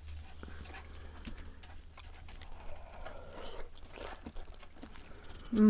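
Black bean noodles being slurped and chewed close to the microphone, with small wet clicks and a longer slurp about three seconds in. Near the end comes a short, loud vocal sound that falls in pitch.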